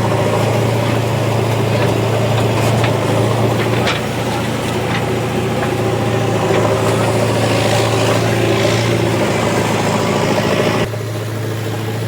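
Heavy diesel machine engine running steadily, with scattered short knocks and clicks over it. About a second before the end the sound abruptly drops in level and turns duller.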